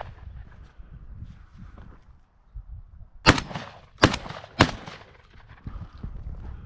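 Winchester SX4 12-gauge semi-automatic shotgun fired three times in quick succession, the last two about half a second apart, at a red-legged partridge flushing far and fast.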